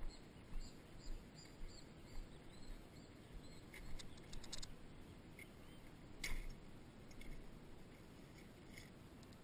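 Faint scattered clicks and light knocks from a mountain bike being stopped and handled, with a sharper knock about six seconds in, over faint high chirps.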